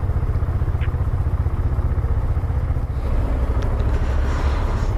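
Dafra Next motorcycle engine running with a steady low, pulsing rumble as the bike rolls slowly at low speed. About three seconds in, a hiss rises over it.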